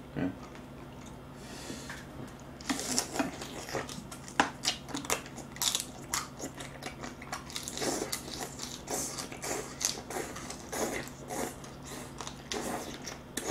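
Close-miked eating: crunching, cracking and wet chewing of crab, shell and all, in a dense run of irregular crackles that starts a few seconds in.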